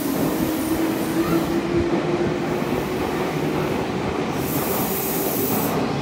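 Meitetsu electric train running past close by along an underground platform: a steady rumble of wheels and running gear with a steady hum from the train.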